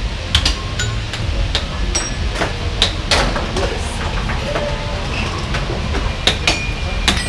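Air hockey puck clacking against the plastic mallets and the table's side rails in an irregular rally of sharp knocks, over a steady low hum.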